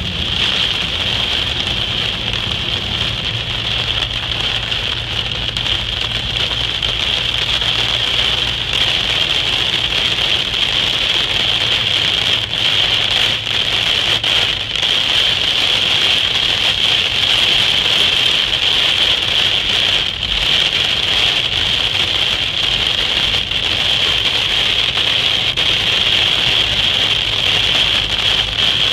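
Heavy rain drumming on a car's roof and windscreen, heard from inside the cabin as a loud, steady, dense hiss. A steady low hum from the moving car runs beneath it.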